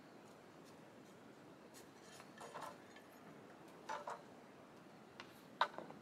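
A few short, crisp crackling clicks over a faint steady background: a pair near the middle, another pair about a second and a half later, and the loudest, a sharp click with a quick follow-up, near the end.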